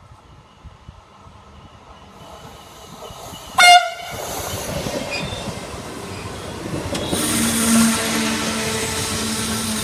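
Passenger train approaching: one short, loud horn blast about three and a half seconds in, then rail and wheel noise that grows louder as the train draws near, with a steady low hum.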